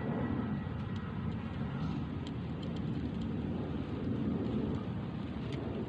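Steady low rumble of background road traffic, with a few faint ticks over it.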